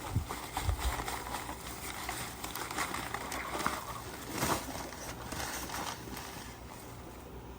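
Digging tool scraping and knocking in hard clay soil while a post hole is dug, with a stronger scrape about four and a half seconds in.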